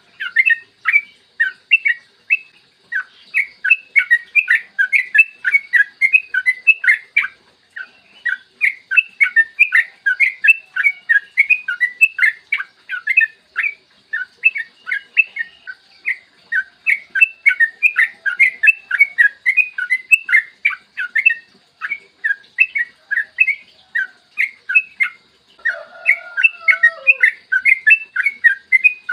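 Yellow-vented bulbul singing a long, nearly unbroken run of rapid short notes, several a second. A brief lower, falling call is heard near the end.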